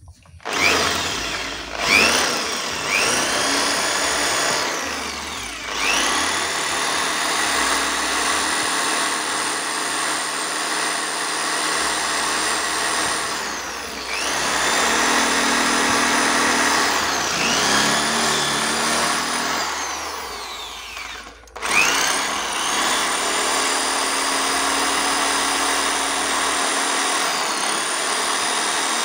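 Electric hand drill boring into a motorcycle's gear shift lever, running in long stretches with its motor winding up at each start. It eases off a couple of times and stops once about two-thirds through before starting again. The hole is for a bolt that clamps the stripped shift lever back onto its shaft.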